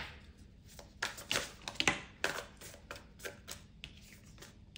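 Tarot cards being handled, giving an irregular run of quick, crisp card clicks and snaps, busiest in the first couple of seconds and sparser after.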